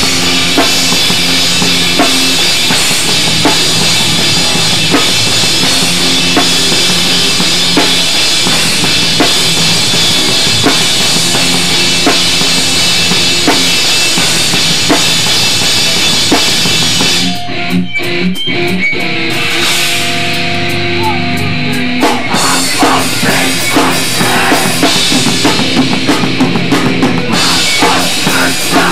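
Hardcore punk band playing loud with a pounding drum kit and distorted guitars. About seventeen seconds in, the drums and the full wall of sound drop out for a few seconds, leaving a sparser guitar part, then the drums crash back in.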